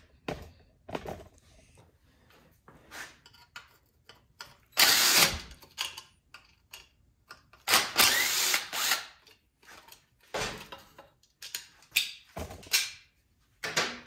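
Cordless power driver with a socket extension running in two short bursts, about five and eight seconds in, backing out the bolts on a Homelite string trimmer's two-stroke muffler. Scattered clicks and clatter of metal parts and tools are handled between the bursts.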